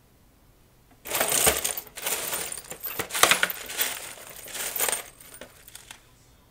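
Loose screws, nuts and washers clinking and rattling in a parts tray as hands rummage through them in search of a nut. The dense rattling starts about a second in, lasts about four seconds, then trails off into a few faint clicks.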